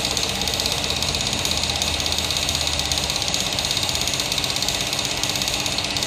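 Small motor-driven pump on a diesel fuel-filter test rig running steadily with a fast, even pulse as it pushes fuel through the filters into the collecting bottles.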